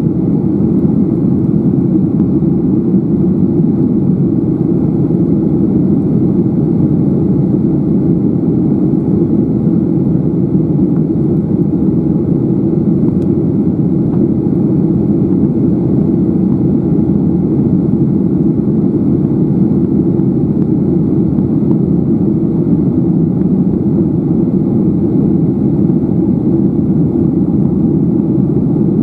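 Steady cabin noise of a Garuda Indonesia Boeing 737-800 climbing after takeoff: an even, low rumble of the engines and the air rushing past the fuselage.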